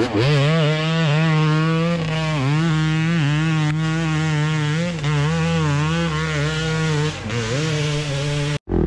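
Dirt bike engine held at high, steady revs, with a few brief dips in revs, then cut off abruptly near the end.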